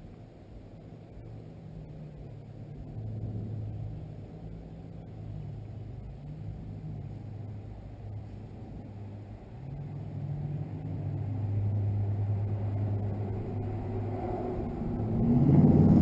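A low motor hum, its pitch shifting a little now and then, growing louder toward the end.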